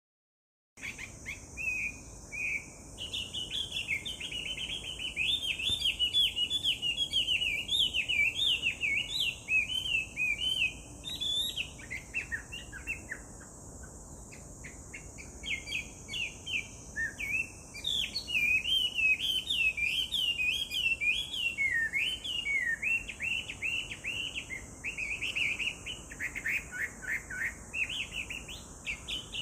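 Chinese hwamei singing a long, loud run of rapid, varied whistled phrases that starts about a second in, with a short lull midway. A steady high hiss runs behind it.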